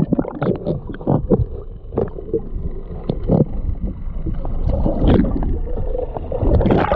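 Muffled underwater sound from a microphone dipped into sea water: sloshing and gurgling with irregular thumps, as a caught jack crevalle is let back into the water. A splash-in at the very start, and a loud thump near the end.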